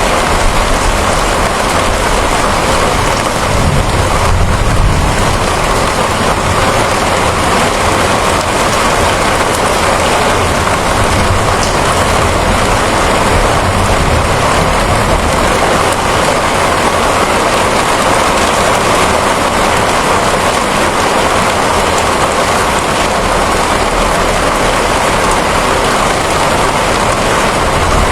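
Steady rainfall, an even hiss, with a low rumble underneath that swells briefly about four seconds in.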